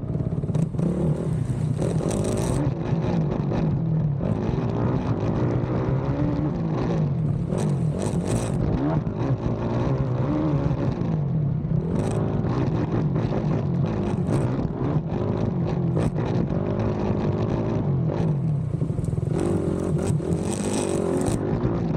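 Racing ATV's engine running hard, its pitch rising and falling with the throttle, with scattered knocks and clatter from the rough track.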